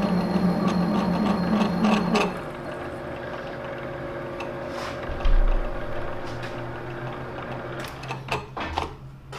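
Metal lathe running with the bronze-nickel spray-welded shaft turning between centres, a steady mechanical hum with a louder low drone for the first two seconds. A single low thump comes about five seconds in, and a few sharp clicks and knocks follow near the end.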